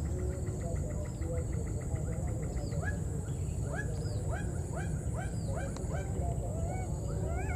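Baby monkey calling over and over, short rising-then-falling cries about two a second.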